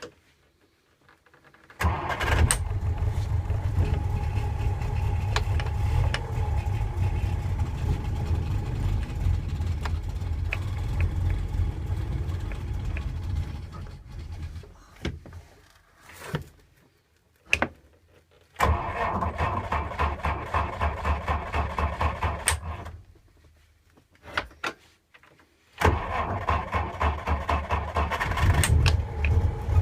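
An engine being cranked by a 6-volt starter in repeated attempts: a long one of about twelve seconds, then two shorter ones, each a fast, even chugging with the starter's whine, with pauses and a few clicks between. A hard start.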